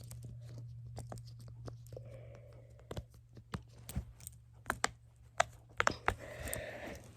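Bubbles of a small silicone pop-it keychain being pressed, a quick irregular string of a dozen or so sharp pops, followed by a short rustle, over a steady low hum.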